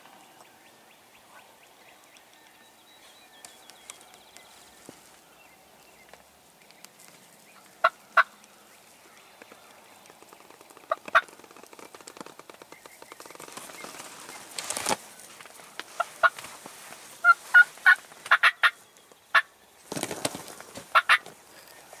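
Wild turkey gobblers calling: a quiet start, then repeated gobbles and shorter sharp calls from about 8 seconds in, coming thicker and louder in the second half.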